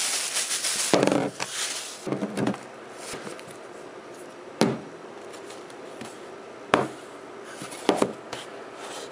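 Plastic shopping bag rustling and crinkling for about the first two seconds, then a handful of short knocks and clicks as a jar and other items are handled and set down on a hard tabletop.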